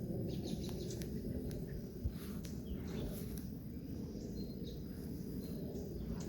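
Outdoor garden ambience: scattered short bird chirps over a steady low rumble, with one brief knock about two seconds in.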